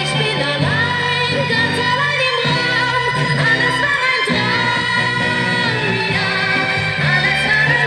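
A 1960s German Schlager ballad playing: a female singer with instrumental backing.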